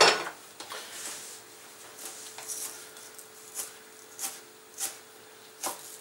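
A plate set down with a single clack, then a kitchen knife slicing a spring onion on a plastic cutting board: short knocks of the blade on the board, about one every half second to second, starting about two seconds in.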